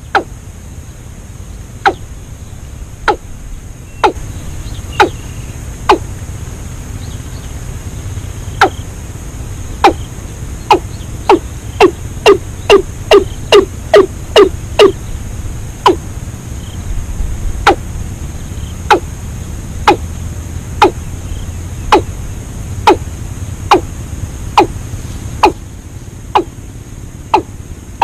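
A bird's short, sharp call notes, each sliding quickly downward. They repeat about once a second, quicken to about three a second around the middle, then slow again, over a steady low rumble.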